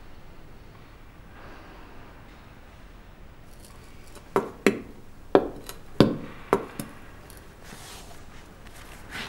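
Figure-skate blades knocking on a hard floor as a skater walks in skates: about six sharp knocks roughly half a second apart, starting about four seconds in, over a quiet room background.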